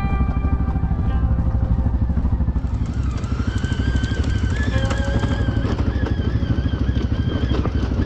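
ATV engine running on a rough trail, a fast steady low pulsing throughout. About three seconds in, a thin higher tone that wavers in pitch joins it.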